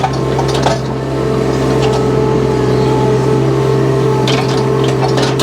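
An engine running steadily at one unchanging pitch, with a few short knocks, about a second in and again near the end.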